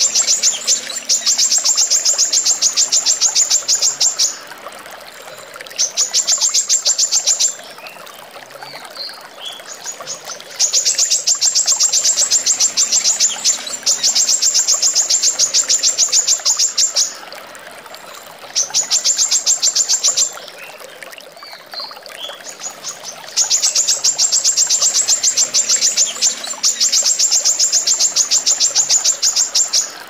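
Female brown-throated sunbird (kolibri kelapa) singing runs of fast, closely spaced high notes, each run two to three seconds long, broken by short pauses with a few softer sliding calls. The same sequence comes round again about every 13 seconds, as a looped recording.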